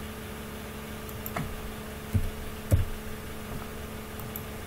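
A few keystrokes on a computer keyboard, the loudest two a little over two seconds in, over a steady low hum.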